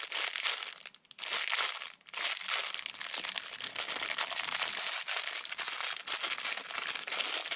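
Packaging crinkling and rustling as a squishy bread toy is unwrapped and handled, in an almost continuous crackle with two brief pauses, about one and two seconds in.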